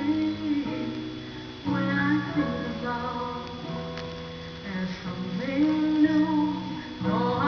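Music playing on a television: guitar chords with a singing voice.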